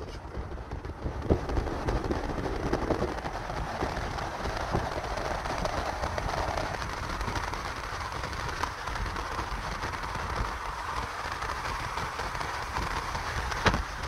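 Wind rushing and buffeting against the phone's microphone, a steady noisy rush with crackling low rumbles.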